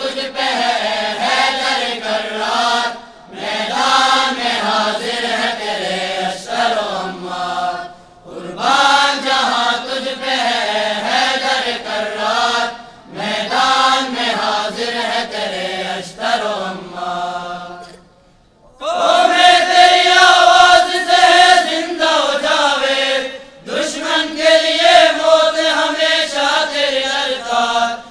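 Choir of boys and young men singing a tarana (devotional anthem) in unison, unaccompanied, in phrases of a few seconds broken by short pauses. After the longest pause, about two-thirds through, the singing comes back on longer held notes.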